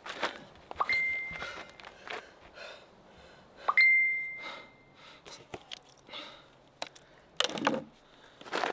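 Smartphone notification chime sounding twice, about three seconds apart: each a quick low blip rising to a single high tone that fades away. Near the end comes a loud breath out.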